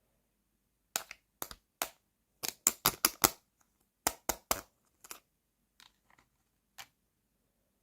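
Small hard plastic toy pieces clicking and tapping as they are handled: a few separate clicks, then a quick run of about six, three more, and a few fainter ones near the end.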